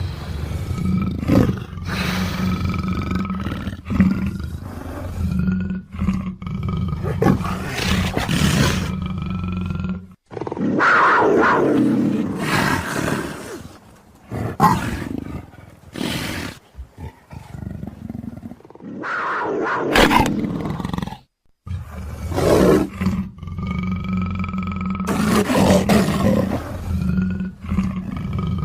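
Leopard growls and roars in a string of separate calls, with short breaks about ten seconds in and again about twenty seconds in. A steady low hum runs under much of it.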